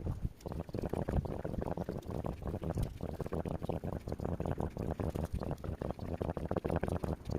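Rain falling, a steady, dense crackling patter that sits mostly low in pitch.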